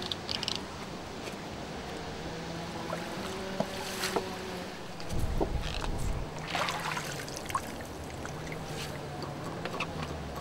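Water splashing and dripping as a long-handled dip net is worked through a stone fish-trap pool and lifted out, with a few splashes and small knocks, and a dull low thump about five seconds in. A low steady hum runs underneath.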